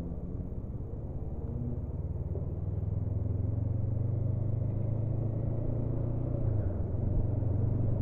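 Honda CB500F's parallel-twin engine running as the motorcycle accelerates, its low note growing gradually louder.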